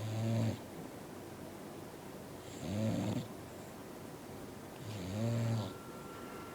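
A sleeping bulldog snoring: three buzzy snores about two and a half seconds apart, each under a second long.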